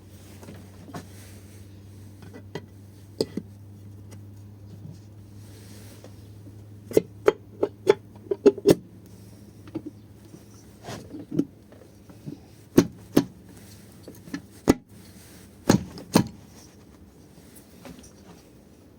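Sharp clicks and knocks of metal engine parts and tools being handled during hand assembly of a small single-cylinder engine, coming irregularly and mostly in the second half.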